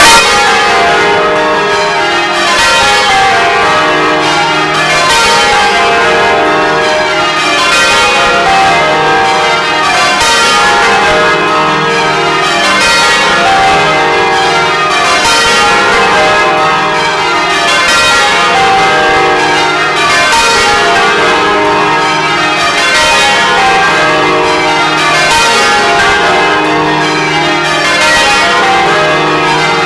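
A ring of twelve church bells rung full circle in change ringing, heard close up inside the belfry, the three heaviest struck by wooden-shafted clappers. Each row of strokes runs down the scale from treble to tenor, repeating about every two and a half seconds.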